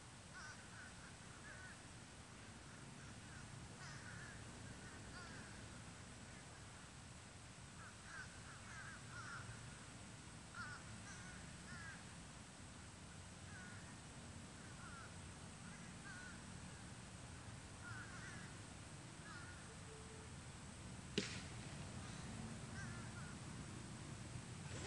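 Birds calling in short, scattered chirps over a faint low rumble, with one sharp click about 21 seconds in.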